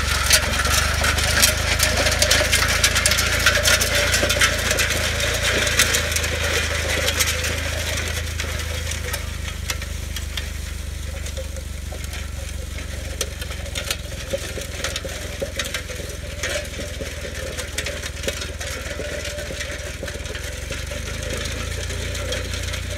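Tractor engine running steadily at low speed while towing an Allis Chalmers 11B disc harrow. The steel disc gangs rattle and clatter over gravel, loudest in the first several seconds, then fading as the rig moves away, leaving mostly the engine hum.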